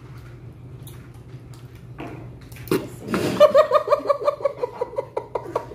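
Laughter starting about halfway through, a quick run of short 'ha' pulses about five a second, after a sharp knock on the table.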